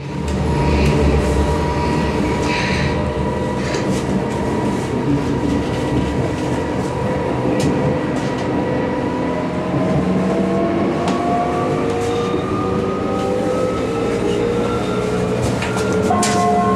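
A Hamburg U-Bahn train running on the line, a steady rumble with occasional clicks from the wheels on the rails. A motor whine of several tones rises slowly in pitch over the second half, as the train gathers speed.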